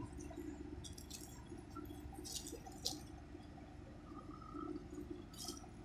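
Combine harvester running with a steady low hum, with a few short crackling rustles on top.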